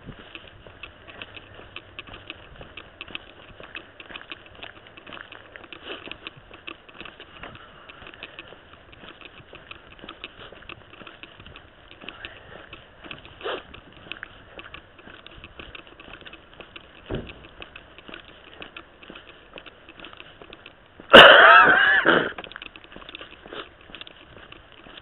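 Footsteps and rustling with many small knocks as someone walks on. About 21 seconds in, a sudden loud sound lasting about a second, with several pitch lines bending up and down.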